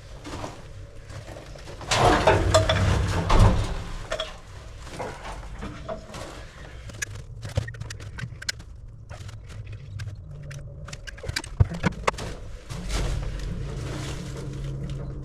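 Hand work with a caulking gun: a louder scraping, rustling stretch about two seconds in, then scattered sharp clicks and knocks, with a low steady hum near the end.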